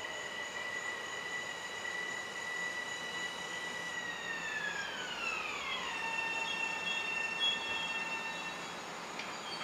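Metro-North M7A electric multiple unit's traction motors whining as the train pulls in. A steady high whine glides smoothly down in pitch about four to six seconds in as the train slows, holds at the lower pitch, then dies away as the train comes to a stop.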